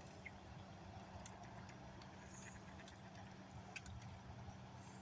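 Faint, scattered sharp ticks and pops of thin ice forming on a freezing pond, a few irregular clicks every second or so, over a steady low hum.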